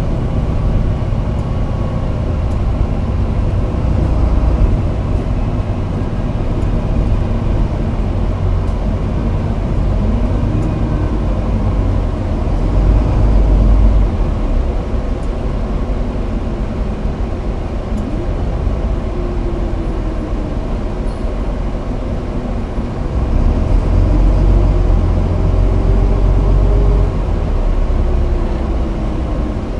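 Toei city bus heard from inside the cabin while driving: a steady low engine and road rumble, with a drivetrain whine that rises and falls several times as the bus speeds up and slows.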